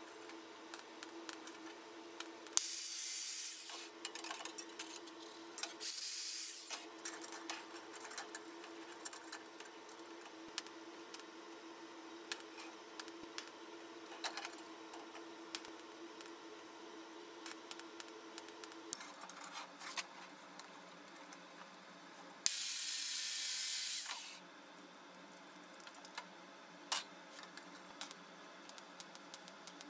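Three short hissing sprays from a pressurised nozzle: one about a second and a half long, one under a second, and a longer one about two seconds long near the end. Scattered light clicks and taps run between them, and a faint steady hum stops about two-thirds of the way through.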